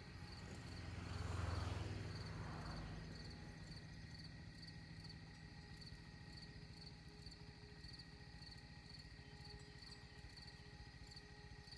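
Faint insects chirping steadily, with a regularly pulsing high chirp over a continuous thin whine. A low rush of noise swells and fades between about one and three seconds in.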